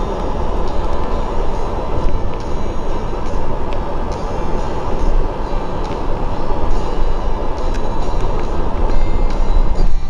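Double-decker bus running, heard from inside the top deck: a loud, steady rumble of engine and road noise with scattered small rattles and clicks.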